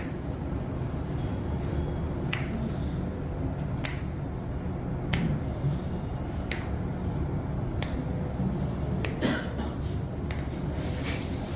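Sharp cracks or pops, about nine spread irregularly, typical of joints cracking under a chiropractor's pressure adjustment, over a steady low hum.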